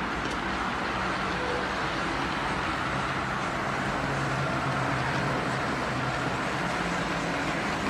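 Model railroad layout with diesel switcher locomotives running, heard as a steady, even noise mixed with the background din of an exhibition hall.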